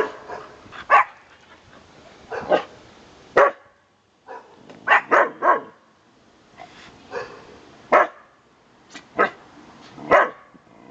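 White long-haired dog giving about ten short single barks, irregularly spaced, with three in quick succession about five seconds in. It is the alert barking of a watchdog.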